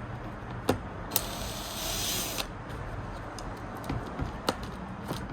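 Small sharp clicks of parts and tools while the iMac's internal speaker is being freed from its cable and screw, with a hissing whir lasting about a second starting a little after one second in.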